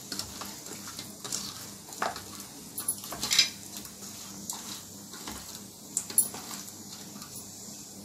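A hand mixing marinated barramundi pieces in a stainless steel bowl: irregular wet knocks and scrapes of fish against the steel, with sharper clicks about 2, 3.5 and 6 seconds in.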